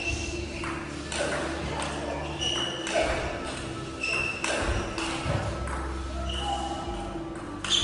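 Table tennis rally: the ball clicks sharply off the players' bats and the table, some hits ringing with a short high ping, about one hit every two-thirds of a second.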